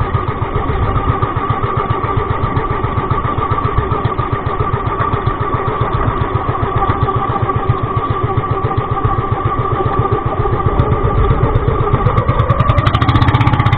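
Pumpboat engine running steadily with a fast, even beat, picking up speed about twelve seconds in as its pitch rises and it gets louder.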